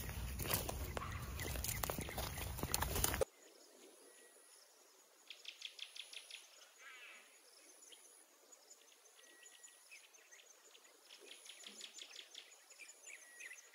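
Footsteps and rustling from walking along a woodland trail, cutting off abruptly about three seconds in. After that come faint bird chirps and trills over a high insect buzz that comes and goes.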